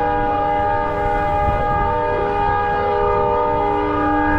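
EMD SD40 diesel locomotive's multi-chime air horn sounding one long, steady chord over the low rumble of the locomotive.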